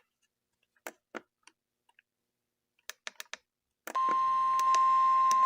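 A few faint clicks, then about four seconds in a loud, steady single-pitched alarm tone near 1 kHz starts: the NOAA Weather Radio 1050 Hz warning alarm tone that comes just before a severe thunderstorm warning is read.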